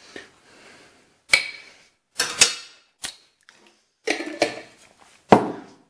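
A metal spoon and kitchen containers being handled on a countertop: about seven sharp knocks and clacks, irregularly spaced, some with a short ring.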